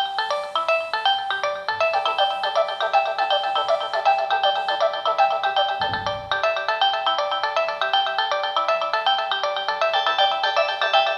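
Nokia 6070 playing a polyphonic ringtone: a fast, busy synthesized melody of quick notes with little bass. There is a brief low thump about six seconds in.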